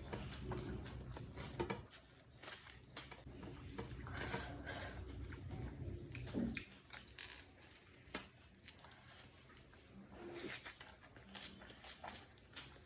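Close-miked chewing of a mouthful of chicken biryani: wet mouth sounds with frequent short clicks and smacks, several louder bursts scattered through.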